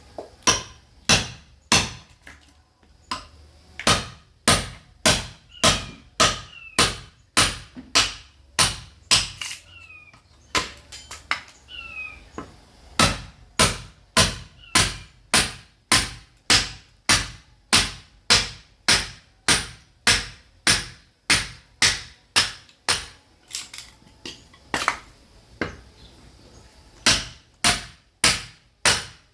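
A sledgehammer striking a steel chisel driven into wood to split firewood, in a steady run of sharp blows about two a second, each ringing briefly. The rhythm pauses a few times, with a stretch of lighter, uneven taps partway through.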